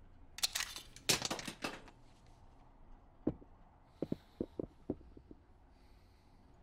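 A quick cluster of sharp cracks in the first two seconds, then a spent pistol shell casing dropping onto a ridged rubber floor mat and bouncing with a few quick light ticks about four seconds in.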